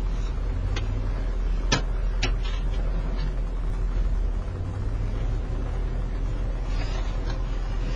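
Police patrol car's engine and road noise, a steady low rumble, with three sharp clicks in the first two and a half seconds, the loudest just under two seconds in.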